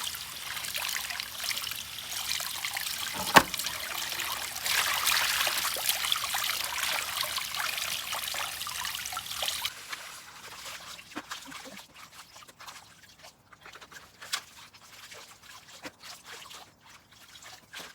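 Water trickling and running through a washbasin with a cracked bottom, left that way so the water drains out. The water stops about ten seconds in, leaving faint clicks. There is one sharp knock about three seconds in.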